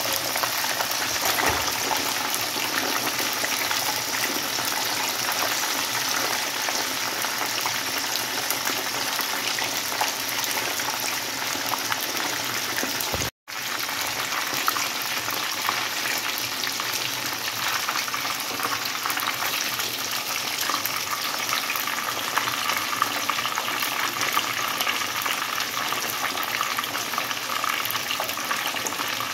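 Whole mojarra fish deep-frying in hot oil in a pan: a steady crackling sizzle. It cuts out for a moment about halfway through.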